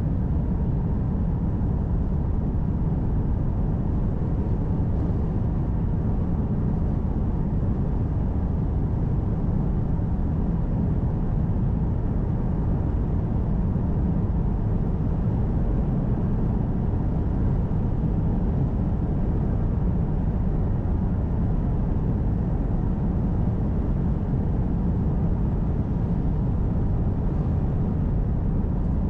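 Steady low rumble of a car driving along, road and engine noise heard from inside the cabin, with no change in level.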